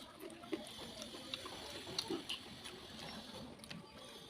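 Eating sounds: chewing and small wet mouth clicks and smacks, scattered and irregular, from someone eating rice and curry.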